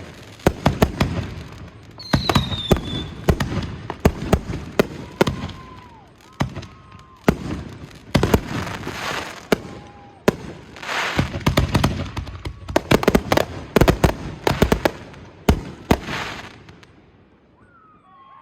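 Backyard consumer fireworks finale: rapid volleys of sharp bangs and bouts of crackling, with a few brief whistles. The barrage stops about a second before the end.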